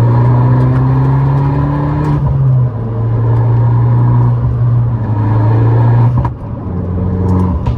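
Abarth 500's turbocharged four-cylinder engine pulling under acceleration, its pitch creeping up and then dropping sharply at a gear change about two seconds in. It then runs steady and eases off briefly about six seconds in before picking up again.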